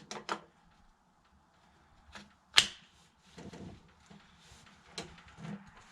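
Scattered sharp clicks and knocks from handling a Bergara B14R bolt-action rifle, typical of working the bolt and loading. Two clicks come close together at the start, and the loudest is a single sharp clack about two and a half seconds in.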